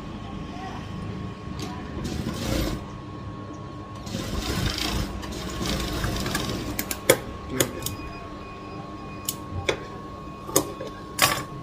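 Industrial single-needle sewing machine stitching fabric in short runs, about two seconds in and again from four to six and a half seconds, over a steady hum. In the second half, a handful of sharp clicks and knocks follow, the first of them the loudest.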